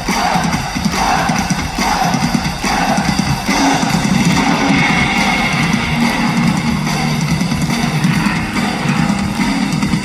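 Loud live rock band music: electric guitar and drum kit playing steadily, with bass underneath.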